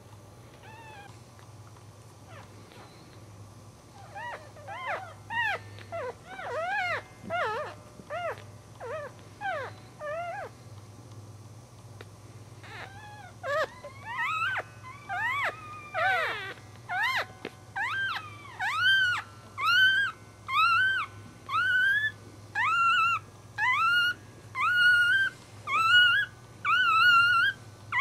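Newborn Cairn Terrier puppies, about two hours old, squeaking and mewing in short high cries. The cries begin a few seconds in, overlapping at first, then settle into a steady run of rising cries a little over one a second that grow louder toward the end.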